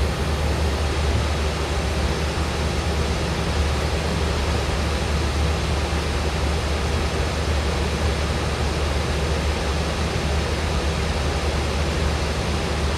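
Steady cabin noise of a Boeing 737 in flight: an even rush of engine and airflow noise with a deep low rumble under it, unchanging throughout.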